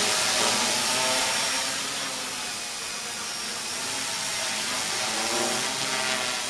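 Conrad 450 quadcopter's electric motors and propellers buzzing in flight, the pitch wavering as the rotor speeds change. Louder for the first couple of seconds, then a little quieter as it flies higher and farther off.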